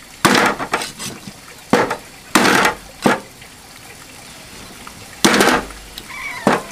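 Cleaver chopping a cooked whole chicken on a wooden chopping block: about eight irregular chops, with a pause of about two seconds in the middle.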